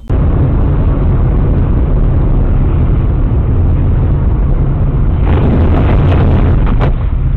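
Loud, distorted rumble of road and engine noise picked up by a dashcam inside a moving car's cabin. About five seconds in, a short run of sharp knocks or clicks cuts through the rumble for about a second and a half.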